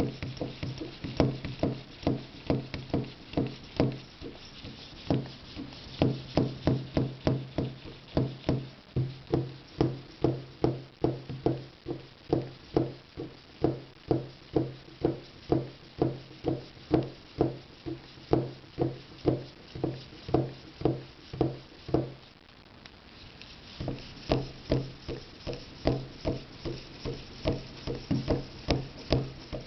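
A hand-operated mountain-bike suspension fork pump is being stroked steadily to pressurize an air rifle's gas ram. The strokes come about two a second, each a short low-pitched note with a click. They pause briefly about three quarters of the way through, then carry on.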